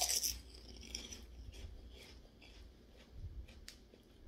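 Crisp pork rinds being chewed: a burst of crunching at the start, then quieter chewing with scattered faint crackles.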